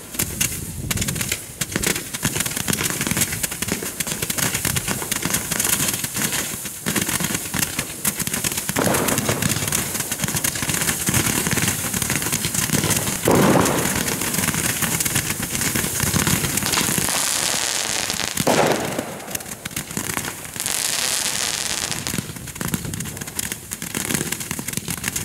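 A chained battery of category 2 roman candles firing in quick succession: a dense, unbroken stream of shots as coloured stars are launched, swelling a few times to louder surges.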